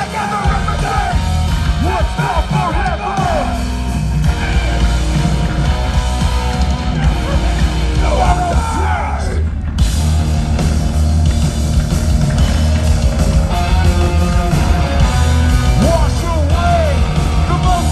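Hardcore band playing live and loud, with yelled vocals over heavy guitars and drums; the band briefly drops out about ten seconds in before crashing back in.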